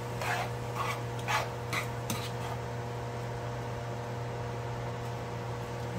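Spatula scraping and stirring chopped kimchi and vegetables around a frying pan, about five short strokes in the first two seconds, then a steady low hum.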